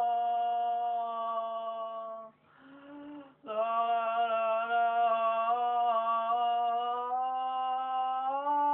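A woman's voice holding long, steady sung notes, breaking off for a breath about two and a half seconds in, then taking up the note again and stepping slightly higher near the end.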